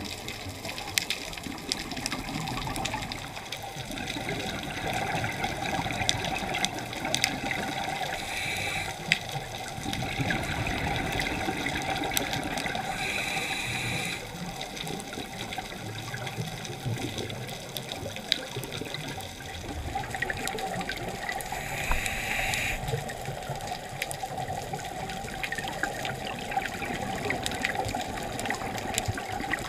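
Scuba regulator breathing heard underwater: several long rushing bursts of exhaled bubbles, with short hisses between them, over scattered sharp clicks.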